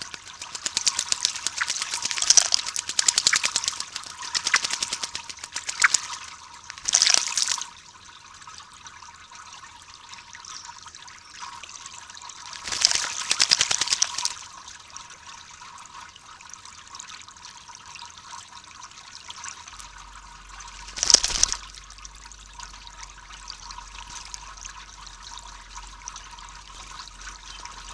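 A blackbird bathing and splashing in shallow water: rapid continuous splashing for the first six seconds or so, then three separate short bursts of splashing, about seven, thirteen and twenty-one seconds in.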